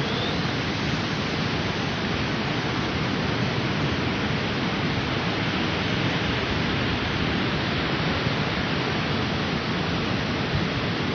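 Steady noise of wind and ocean surf on the beach, even and unbroken throughout.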